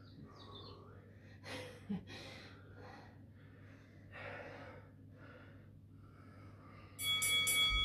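Heavy breathing, with soft puffed exhales about once a second, from people straining through lateral lunge pulses. Near the end comes a short electronic beep from the workout interval timer.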